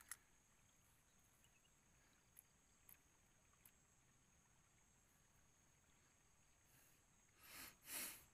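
Near silence at the water's edge: a small splash as the cast bait rig and float land on the water at the start, then a few faint ticks, and two short rushing noises near the end.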